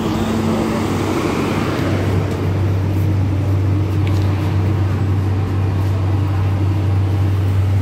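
MTR K-Train subway car standing at the platform: a steady low hum sets in about two seconds in and holds over a constant rushing background noise.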